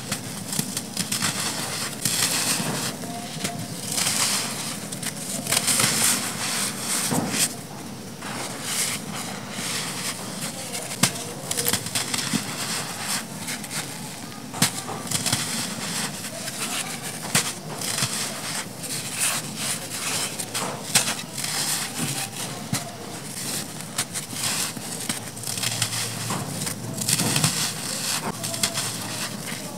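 Dry clumps of black sand crushed and crumbled by hand, close up: a continuous run of crunching and crackling with many small sharp snaps, and loose grains sifting and pouring.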